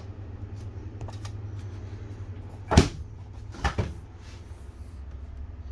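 Three knocks: one sharp knock about three seconds in, then two quicker ones about a second later, over a steady low hum.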